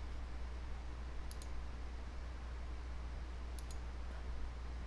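Steady low hum with faint computer mouse clicks: two quick pairs of clicks about two seconds apart.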